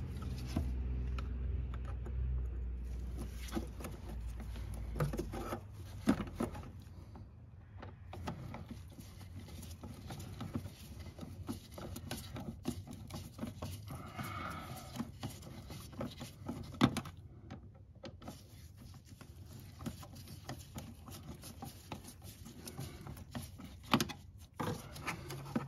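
Phillips screwdriver turning out the screw of the fuel filter's mounting clamp: faint scraping and small metal clicks, with a few sharper knocks, about a second apart near the end. A low hum fades out in the first few seconds.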